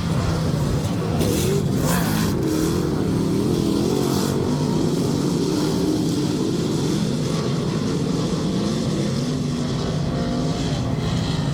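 Several dirt-track race cars running around the oval together, their engines rising and falling in pitch over and over as the drivers get on and off the throttle.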